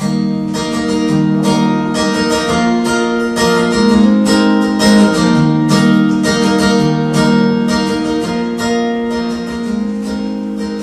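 Solo acoustic guitar strummed in a steady rhythm, an instrumental passage between sung lines; it comes in suddenly and loud at the start.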